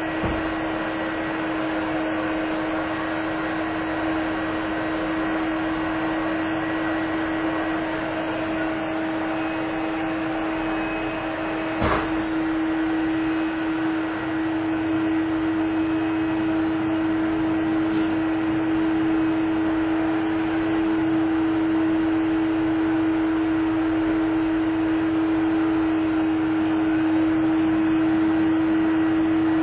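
Vacuum cleaner running steadily: a constant motor hum with a strong single tone and a hiss of air over it, with one brief knock about twelve seconds in.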